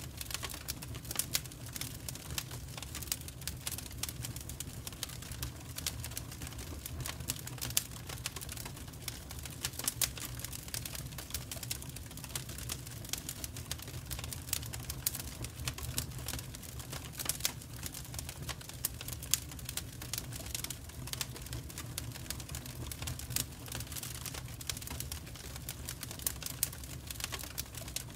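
Wood fire in an open fireplace grate crackling, with many irregular sharp snaps and pops from the burning logs over a low steady hum.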